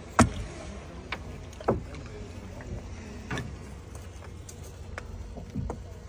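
A handful of sharp knocks and clicks, the first the loudest, over a steady low rumble.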